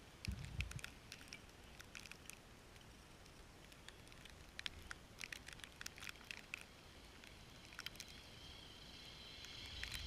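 Traxxas Summit RC truck running through snow: faint scattered crackles and soft pattering, with a low thump about half a second in and a faint high whine coming up near the end.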